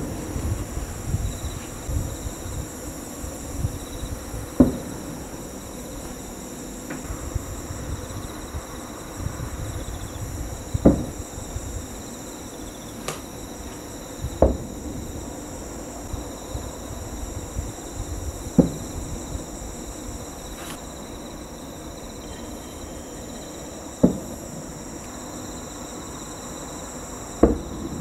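Distant aerial firework shells bursting about 3 km away, heard as a dull boom every few seconds, about seven in all, each with a short echo. A steady high chirring of night insects runs underneath.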